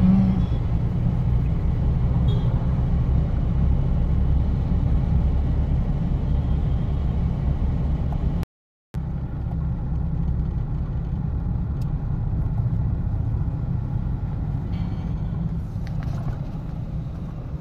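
Steady low rumble of engine and tyre noise heard from inside a moving vehicle on a road. It drops out to silence for a split second about halfway through, then carries on the same.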